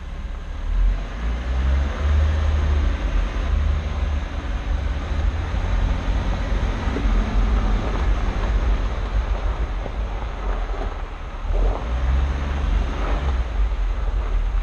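Jeep Wrangler driving along a dirt trail: the engine and the tyres on loose dirt under heavy, gusty wind rumble on an outside-mounted camera microphone.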